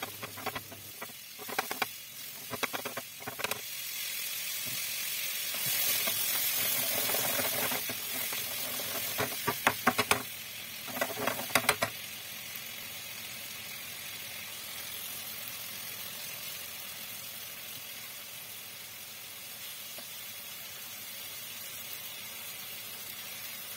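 Chicken, tomatoes and green chillies sizzling in a frying pan over a gas flame. The hiss swells for several seconds, with bursts of clattering from the pan being tossed and stirred in the first few seconds and again around ten to twelve seconds in, then settles to a steady sizzle.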